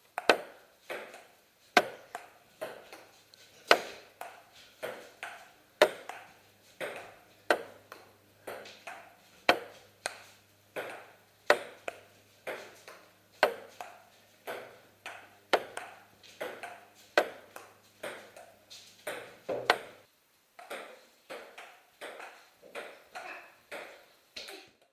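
Table tennis ball bouncing off the table and being hit back and forth with paddles in a rally: a long run of sharp clicks, roughly one or two a second.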